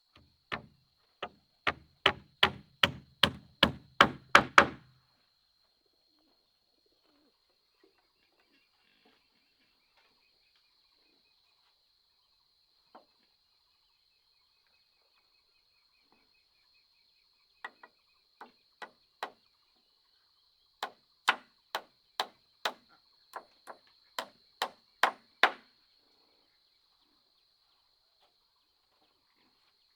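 Two runs of sharp chopping strikes from a hand tool, about two to three a second: one in the first five seconds, getting louder, and another from about eighteen to twenty-six seconds, with a quiet gap between. A faint steady high-pitched drone runs underneath.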